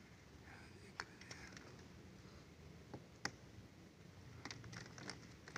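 A few faint, sharp clicks and light taps from fingers handling the wiring and plastic connectors of an air-conditioner's control board, over quiet room tone.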